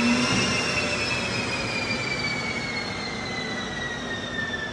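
Starboard GE CJ-610 turbojet turned by its electric starter without lighting, whining at about 8% speed. A low hum stops about a third of a second in, and the turbine whine then falls slowly in pitch as the engine spins down.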